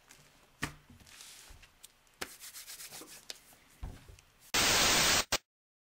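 Soft rustling and a few light taps, from hands and an open Bible being handled at a desk, then a thump and a loud, even burst of hiss-like noise lasting under a second that starts and cuts off abruptly.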